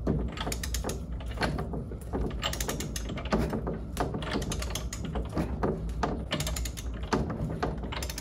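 Ratchet head of a click-type torque wrench clicking in short runs as the handle is swung back and forth, turning the drive shaft to tighten the pinion nut, still short of its 65 ft-lb set point.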